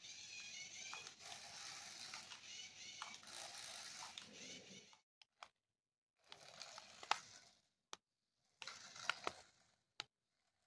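Faint whir of a small DC motor and gears driving a cardboard RC truck, with a wavering high whine, broken into short stretches with a few sharp clicks.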